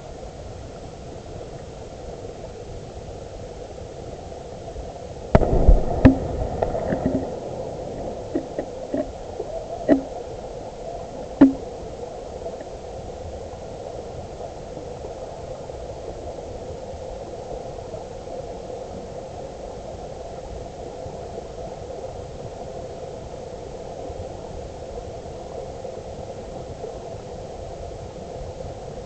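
Underwater sound picked up by a GoPro in its waterproof housing at the bottom of a river: a steady rushing hiss of the current, with a burst of loud knocks about five seconds in and a few single sharp clicks over the next several seconds.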